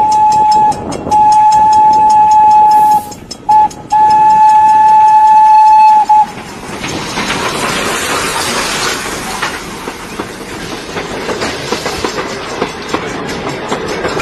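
Diesel locomotive horn sounding a string of blasts on one steady pitch: two long blasts about two seconds each with a brief toot between them. About six seconds in the horn stops and the engine and wheel noise of the approaching train takes over.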